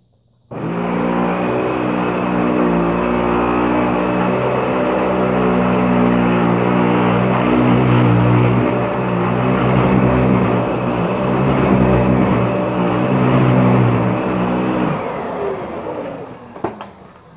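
Dyson DC65 upright vacuum cleaner switched on about half a second in, running steadily with a pitched motor hum. It is switched off near the end, and the motor winds down with falling pitch.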